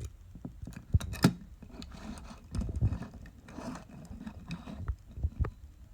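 Handling noises: irregular clicks, two sharp knocks about a second in, and rustles as a die-cast toy car is turned over in the hands close to the microphone.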